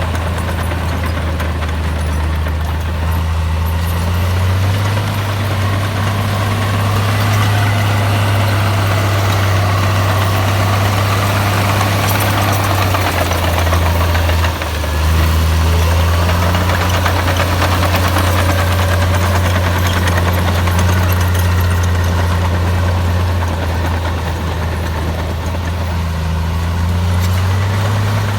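Komatsu bulldozer's diesel engine running steadily under work, a deep, even hum that dips briefly about halfway through and then picks back up.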